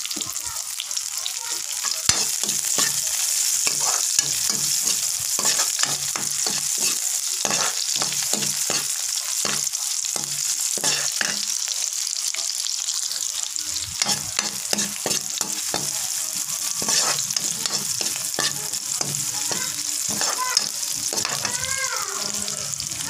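Chopped onion and garlic sizzling in hot oil in a metal pan while a stainless steel spoon stirs them, a steady sizzle broken by frequent scrapes and clicks of the spoon against the pan.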